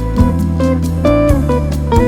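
Background music: guitar-led tune with a steady bass line and beat.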